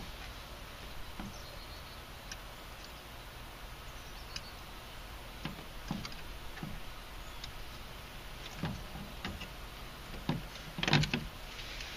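Scattered small clicks and rustles of hands handling a car door speaker and its wiring, with a short cluster of louder clicks near the end.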